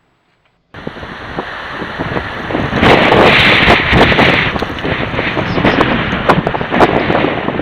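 Strong wind buffeting the microphone: a loud rushing noise with many crackling knocks, starting suddenly after a moment of silence and strongest about three to four seconds in.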